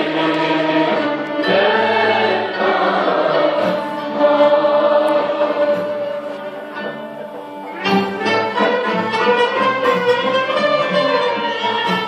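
Turkish classical music in makam Hicaz: a mixed choir singing with an instrumental ensemble, holding a long note, then a new phrase starting about eight seconds in.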